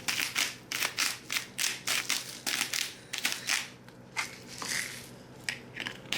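Salt grinder being twisted, a quick run of gritty crunching strokes about four a second, pausing briefly about four seconds in before a few more turns.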